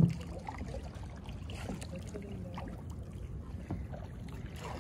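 Kayak paddle working calm water: quiet dripping and lapping of water off the blade, with faint scattered ticks. A single sharp knock comes right at the start.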